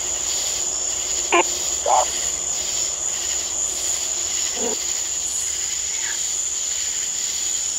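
Night chorus of crickets, one steady high-pitched trill that carries on unbroken. Four brief, clipped sounds cut through it, two close together about a second and a half in and two more later; they are captioned on screen as words.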